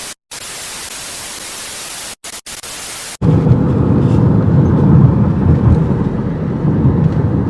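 TV-static hiss of a glitch transition effect, cut by a few sudden brief dropouts; about three seconds in it cuts abruptly to the steady low rumble of a moving car heard from inside the cabin.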